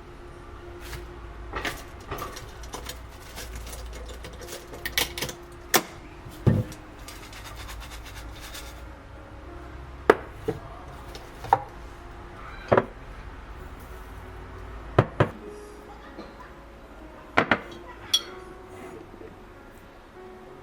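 Kitchenware being handled: dishes and utensils knocking and clinking about a dozen times at irregular intervals, some with a brief ring, over a faint steady low hum.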